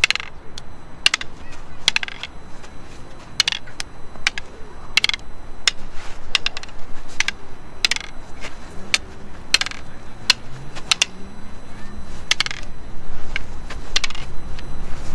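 Wooden practice sticks clacking together in a Balintawak single-stick drill, sharp knocks coming about every half second to a second in an uneven rhythm of strikes and blocks.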